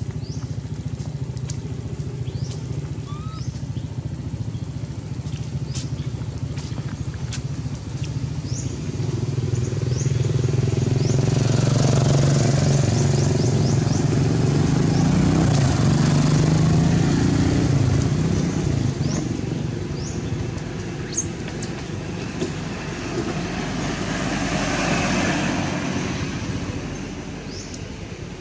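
Road traffic going by: a steady engine hum, with one vehicle passing loudly for several seconds about a third of the way in and a second, smaller pass near the end. Scattered sharp clicks sound over it.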